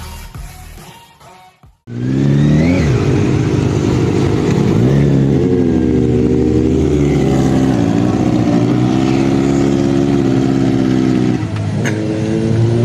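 Motorcycle engine revving up and down, then held at a steady, fairly high pitch while riding; after a cut near the end, engine sound again, rising in pitch.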